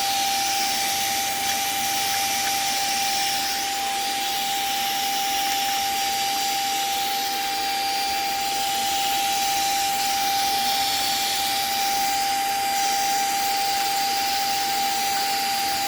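Small vacuum cleaner running steadily, used to clean dust off a PC's CPU heatsink: a constant whine over a rushing hiss.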